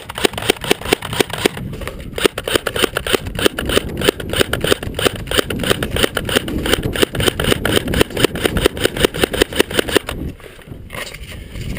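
Rapid, regular mechanical clicking from an airsoft rifle and its magazine, about ten clicks a second. It stops about ten seconds in. It goes with a magazine feeding problem, which the player blames on the magazine's follower.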